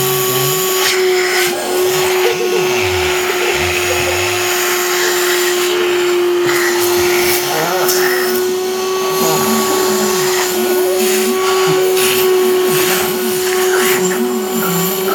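Vacuum cleaner running steadily, its motor giving a constant hum over a rushing airflow.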